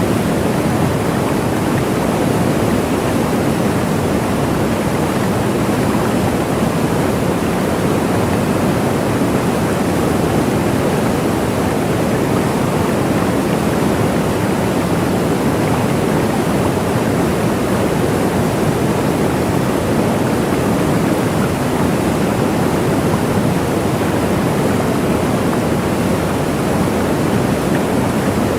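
Waterfall: a steady rush of falling water that stays even throughout.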